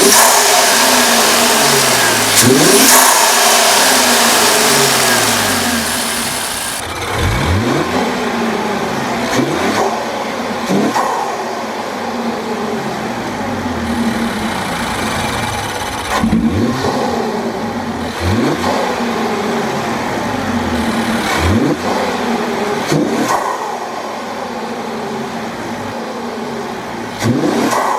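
Infiniti Q50's engine, breathing through aftermarket AMS cold air intakes, idling and being blipped about nine times, each rev a quick rise and fall in pitch. A hiss sits over the first several seconds.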